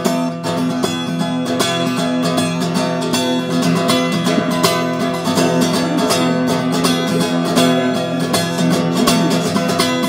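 Acoustic guitar played alone in a quick, steady strumming and picking pattern, an instrumental passage with no singing.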